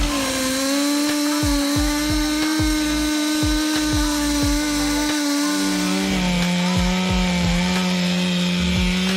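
Two-stroke chainsaw running at high revs through wood, a steady high engine note. About five and a half seconds in, a lower, steady chainsaw note takes over while the first fades out.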